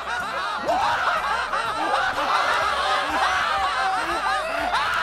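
Puppet characters' voices laughing and snickering, several high-pitched cackles overlapping without a pause.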